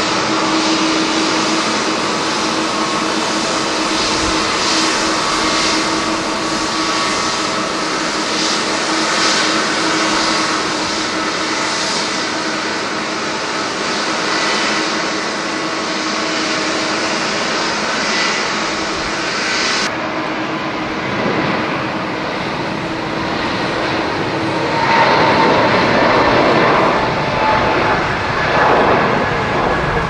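Jet engines of a Boeing 787 Dreamliner running steadily as it rolls down the runway after landing, its spoilers raised: a hum with a whine over it. About twenty seconds in, the sound changes abruptly. Near the end, a louder, rougher roar swells from a Boeing 777 taking off.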